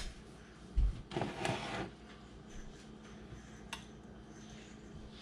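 Quiet kitchen handling sounds: a low thump about a second in, a brief scraping rustle just after, and a single sharp click near the end, over a faint steady hum.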